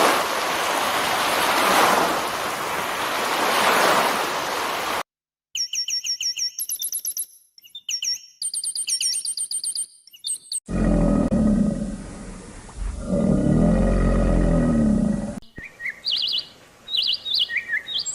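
A run of separate animal-sound clips: a steady rushing noise for about five seconds, then quick series of high bird chirps, then a deep roar lasting about five seconds, then scattered high bird calls near the end.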